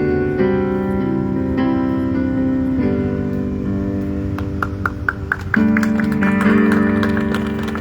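Instrumental music with guitar: sustained chords shifting every second or so, with a quick run of plucked notes about halfway through.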